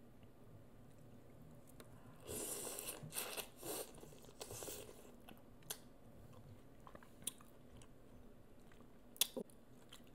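Close-up mouth sounds of a person biting and chewing sauce-coated seafood: a run of wet chewing and smacking for a few seconds, then a few sharp lip-smack clicks.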